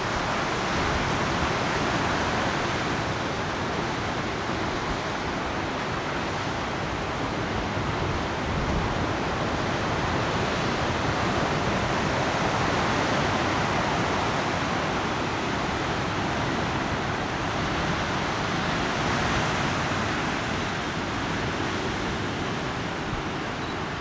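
Pacific surf breaking on rocks and a beach below a sea cliff: a steady rushing wash that swells and eases every several seconds.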